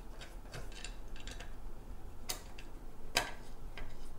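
Light, irregular clicks and taps of metal pedal parts and tools being handled. Two sharper clicks come about two and a half and three seconds in.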